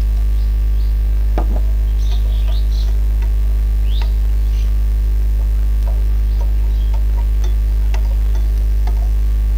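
Steady loud electrical mains hum, with a few faint clicks and scrapes of a metal spatula turning cashews in a frying pan.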